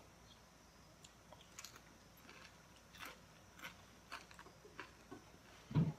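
Faint crunching of a crispy fried chicken piece coated in flattened green rice (cốm dẹp) being bitten and chewed: scattered short crunches, with a soft low thump near the end.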